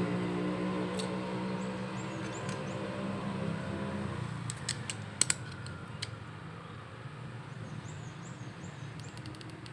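A low, steady machine hum fades out over the first four seconds. Then come sharp clicks of small plastic and metal parts being handled and snapped together on a vape mod's casing, a cluster about five seconds in (the loudest sound) and a few more near the end.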